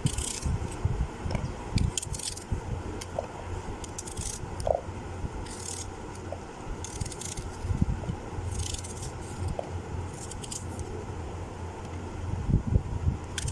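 Knife cutting apples: irregular short scrapes and clicks of the blade, with occasional soft knocks, over a faint steady low hum.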